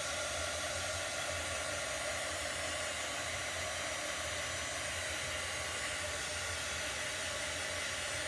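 Handheld blow dryer running steadily, blowing air to dry freshly applied chalk paste.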